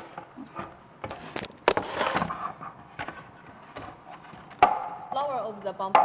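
Knocks and clatter of body-kit parts being handled and set down, several sharp knocks among lighter clicks, with brief voices in the background near the end.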